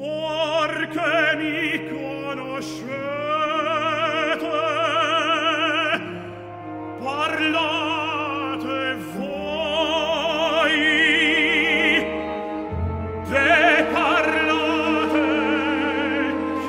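Operatic solo voice singing with wide vibrato over an orchestra, in long held phrases with a brief lull about six seconds in and another near twelve seconds.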